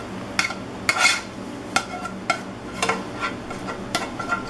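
Plastic spoon scraping and knocking sautéed onions and peppers out of a Copper Chef pan into a ceramic bowl: a string of short, irregular scrapes and taps.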